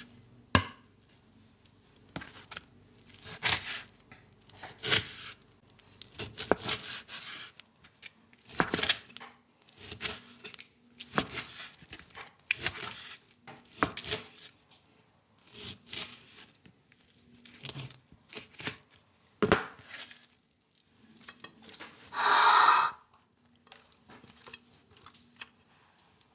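Knife cutting raw beef tongue on a plastic cutting board: irregular slicing strokes, each ending in a sharp knock of the blade on the board, roughly one a second. About three seconds before the end comes one longer, louder rasping noise.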